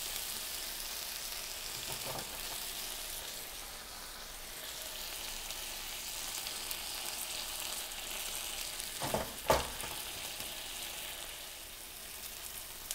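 Marinated chicken thigh sizzling steadily skin side down in a nonstick frying pan on medium heat. A few sharp knocks come through it, the loudest just past nine seconds in.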